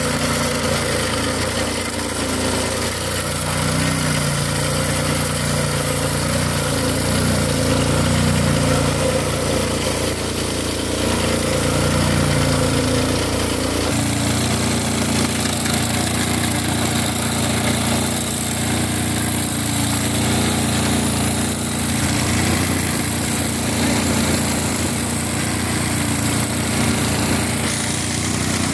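Small petrol-engine abrasive rail cutter running at speed, its cut-off disc grinding through a steel rail with a steady engine drone and a harsh hiss of metal being cut. The sound shifts abruptly about halfway through.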